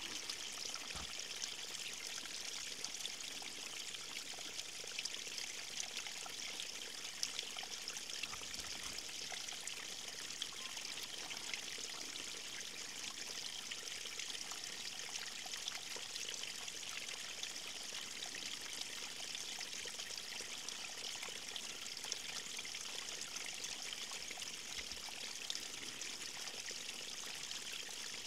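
River stream water flowing and trickling, a steady splashing hiss with fine droplet ticks.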